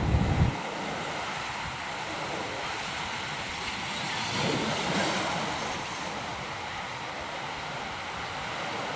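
Ocean surf washing against a rocky shore: a steady hiss of water that swells about four to five seconds in. A rumble of wind on the microphone cuts off about half a second in.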